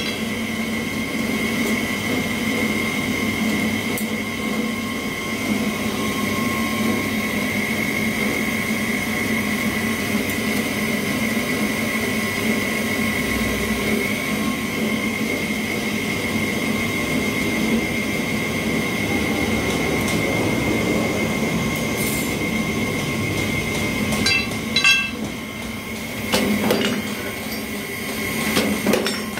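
Powered steel bar shearing machine running with a steady hum and a constant high whine. Near the end come a few sharp metal clinks and a louder clank.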